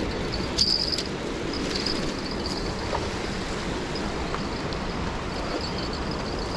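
Steady rushing noise of flowing river water, with a faint high buzz of insects coming and going.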